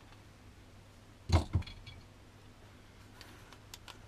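Two sharp knocks about a quarter of a second apart, a little over a second in, followed by a few small clicks, then faint light clicks near the end: handling noise from a work lamp and tools being moved about on a garage floor.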